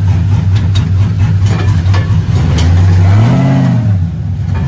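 A vehicle engine running steadily, then revved once about three seconds in, its pitch rising and dropping back.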